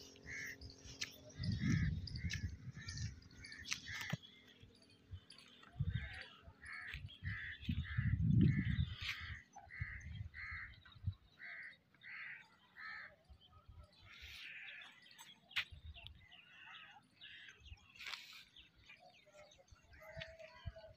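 A bird calling over and over, short calls about two a second, which thin out to scattered calls after about thirteen seconds. Low rumbles break in briefly near the start and again about a third of the way through.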